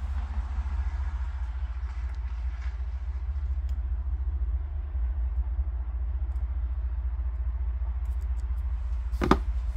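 A steady low rumble, with a single sharp knock about nine seconds in.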